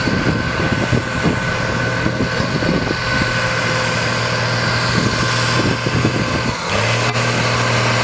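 Vintage tractor engine pulling a weight-transfer sled under load, a steady low drone; the sound changes abruptly about two-thirds of the way through, then the drone runs on.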